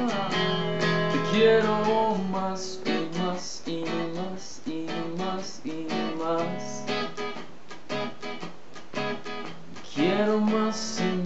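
Stratocaster-style electric guitar playing an instrumental passage: sustained single notes with bends for the first couple of seconds, then short rhythmic chords.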